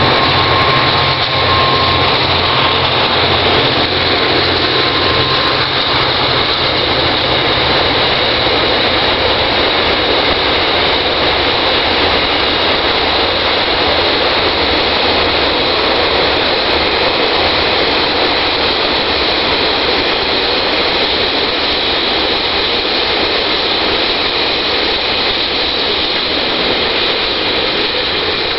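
DQ and DC class diesel-electric locomotives hauling a coal train past: a low engine throb in the first several seconds, then the steady rumble of the coal hopper wagons rolling by on the rails.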